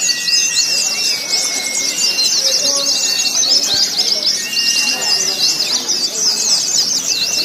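A dense chorus of many white-eyes (pleci) singing at once, rapid high twittering without a break. Beneath it runs a murmur of crowd voices, and a few long steady whistled notes come and go.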